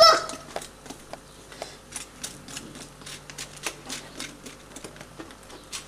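Irregular sharp clicks and crackles, several a second, from hands working at a small gas burner fed by a bottled-gas cylinder.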